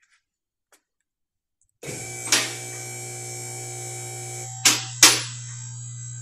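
Two-post car lift's electric hydraulic pump motor starting about two seconds in and running with a steady hum as it raises the car. Three sharp clacks ring out along the way, typical of the lift's safety latches dropping in as it climbs.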